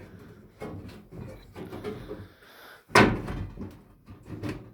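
The front panel of a Daewoo washing machine being pulled and worked loose: a string of knocks and rattles, with one loud bang about three seconds in.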